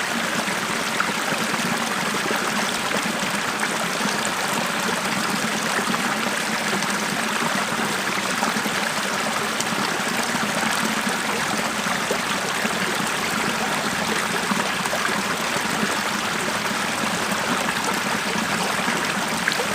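Small forest stream flowing and babbling over stones, a steady rushing and trickling of water.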